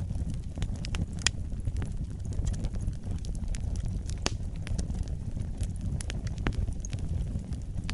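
Wood fire burning in a fireplace: a steady low rumble of the flames with irregular sharp crackles and pops, the loudest a little over a second in and about four seconds in.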